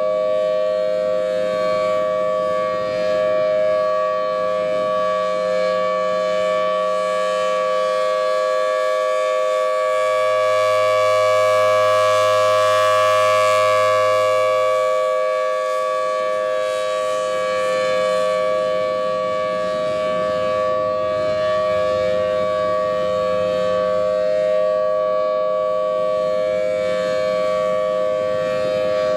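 Thunderbolt 1000T civil defense siren sounding a steady tone at a constant pitch. It swells louder for a few seconds in the middle.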